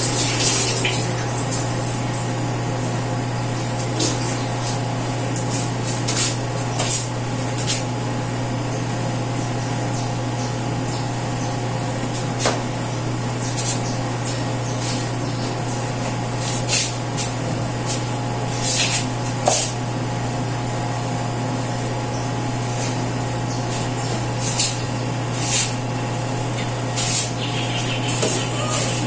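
A steady low hum throughout, with irregular scrapes, rubs and clicks over it, as of a stove being scrubbed and wiped.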